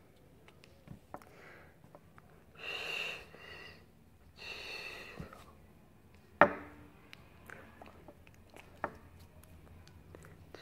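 Quiet handling sounds of sign-language signing: scattered soft clicks and taps of hands meeting, with one sharp slap a little past halfway, and two breathy puffs of breath from the signer's mouth before it.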